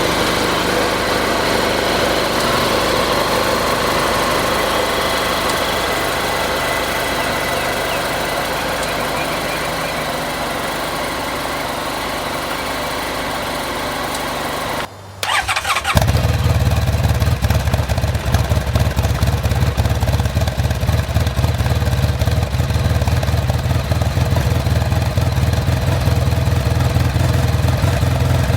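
Honda VFR1200F's V4 engine idling steadily through its exhaust. After a short break about halfway through, it comes back with a much stronger, deeper low rumble, on a more open exhaust setup.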